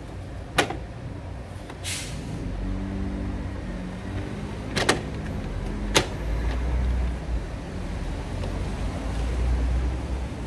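Gloved hands handling parts on top of a BMW N54 engine: a few sharp clicks and taps (one just after the start, a quick double click about halfway, another a second later) and a brief rustle, over a low rumble that swells in the second half.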